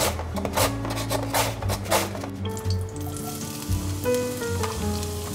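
Carrot being julienned on a plastic mandoline slicer, a quick run of short rasping strokes. About three seconds in this gives way to a steady sizzle as the carrot strips go into hot olive oil in a cast-iron Staub pot.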